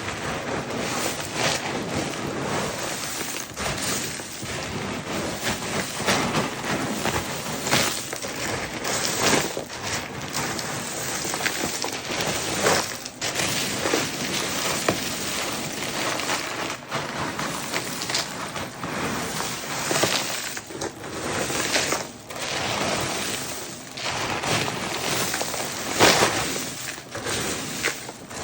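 A large batch of dry treat mix being stirred by hand: uncooked pasta, Cheerios, in-shell sunflower and pumpkin seeds and peanuts rattling, clattering and rustling against one another in a dense, continuous crackle.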